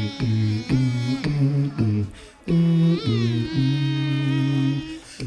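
Two beatboxers performing an original drum and bass piece with their voices alone: deep humming vocal bass notes in short stabs, then a long held bass note from about halfway, with a higher voice gliding in pitch over it just after it starts.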